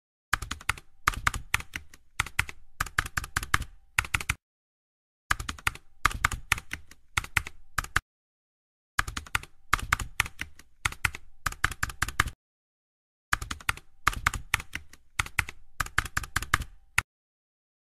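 Keyboard typing clicks in four quick runs of several seconds each, with short silent pauses between them, a typing sound effect for on-screen text appearing letter by letter.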